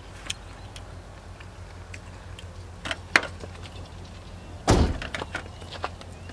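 Hands tearing apart a piece of boiled chicken: scattered small clicks and snaps, the loudest a short burst just under five seconds in.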